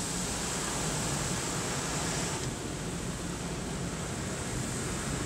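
Heavy sheets of water from a tunnel car wash pouring over the windshield and body, heard from inside the car's cabin: a steady rushing hiss that thins slightly about two and a half seconds in.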